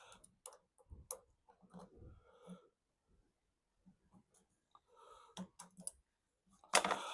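Light, scattered clicks and taps of small metal engine parts being handled on the bench, with one louder clatter near the end.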